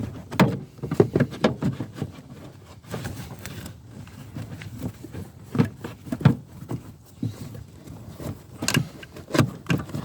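Irregular clicks, knocks and small rattles of hard parts being handled while a cover is fitted onto a car's rear light.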